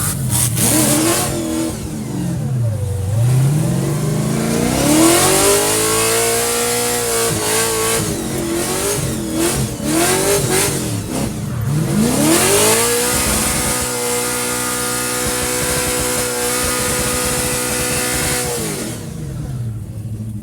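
Car engine revving hard while drifting, its pitch swooping down and back up several times, then held high and steady for about five seconds before dropping away near the end. A hiss rides over the engine during the loudest stretches.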